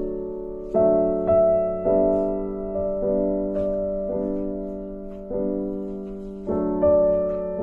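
Background piano music: slow single notes and chords struck about once a second, each ringing and fading away.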